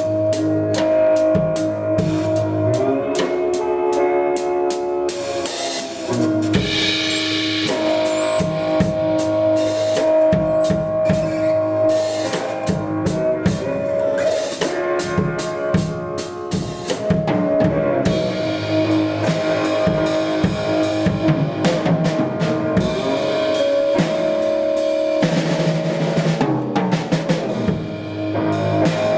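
Instrumental blues jam-band music: a drum kit plays a busy beat with many snare and rim hits under long held notes and a low bass line.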